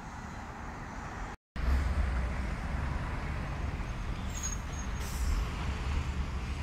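Steady low engine rumble, with a brief silent gap about a second and a half in, after which it is louder.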